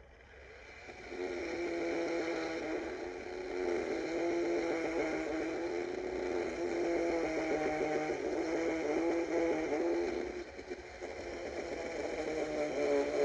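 DeWalt 20V battery chainsaw running and cutting wood, a steady electric whine whose pitch wavers under load. It dips briefly near the end and then cuts off suddenly.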